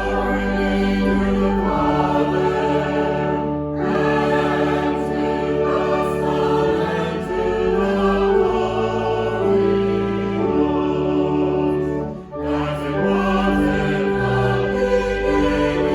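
Church music: a choir singing slow, held chords over an accompaniment.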